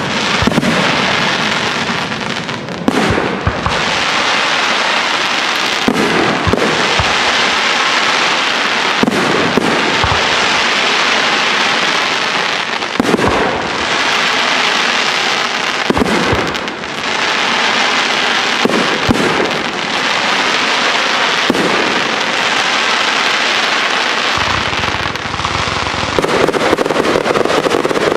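Aerial fireworks display: shells bursting with sharp bangs every few seconds over a continuous dense crackle from glittering star effects.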